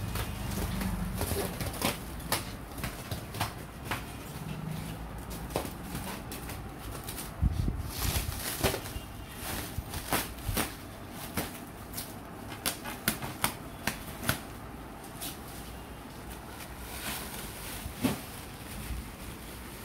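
Clear plastic stretch wrap being pulled and handled, crinkling with irregular sharp crackles, with a dull bump about a third of the way in.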